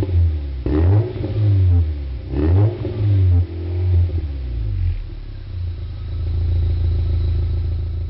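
Volkswagen Golf Mk3 engine revved through a twin-tip exhaust: several quick blips that rise and fall in pitch, then settling into a steady idle about five seconds in.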